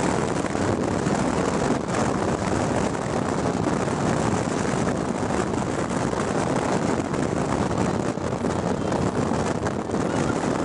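Steady road noise heard from inside a moving vehicle at highway speed: tyre rumble, engine and rushing air in an even, unbroken noise.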